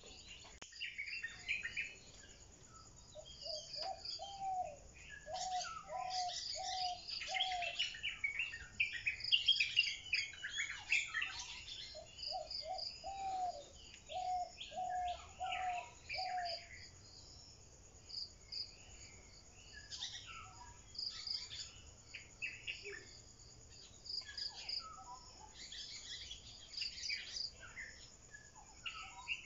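Birds chirping and calling, over a steady pulsing high trill of insects. Twice, one bird repeats a lower note about eight times in a row.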